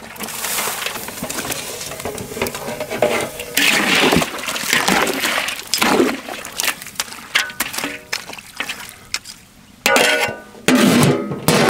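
Background music over the clatter of a metal ladle stirring chopped turkey and onions in a large aluminium pot, with many short clicks and scrapes.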